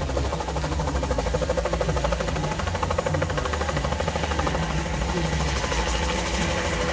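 Light single-engine helicopter lifting off into a low hover at takeoff power: the turbine's steady whine under a rapid, even beat from the main rotor blades.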